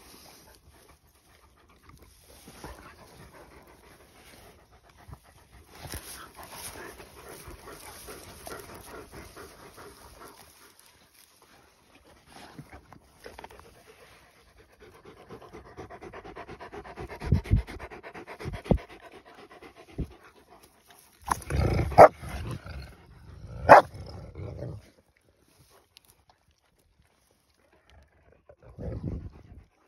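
Akbash dogs panting and snuffling with their muzzles pushed into dry grass, the grass rustling. About two-thirds of the way through come a few loud, sudden sounds close to the microphone.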